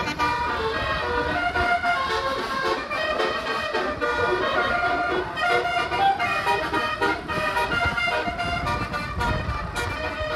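A bus's multi-tone 'telolet' (basuri) air horn playing a quick tune of short notes that change pitch in steps, over engine and road rumble.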